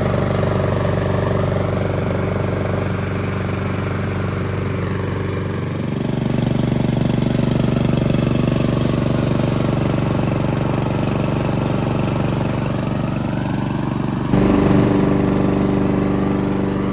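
Petrol lawn mower engine running steadily while mowing. Its note shifts about six seconds in, and near the end it jumps louder with a different pitch.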